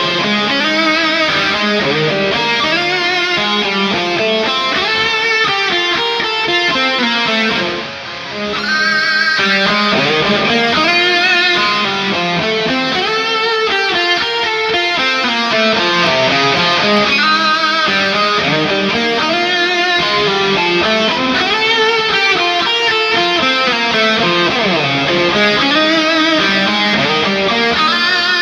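Ibanez PIA electric guitar played through an amp-simulator plugin, picking melodic lines with bending, wavering notes. The level drops briefly about eight seconds in.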